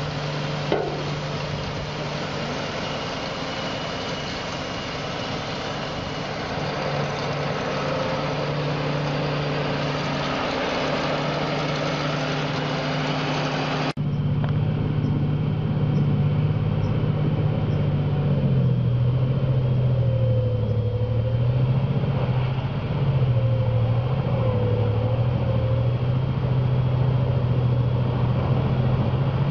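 Engines running with a steady hum. About halfway there is an abrupt cut to a louder engine whose pitch dips and recovers several times.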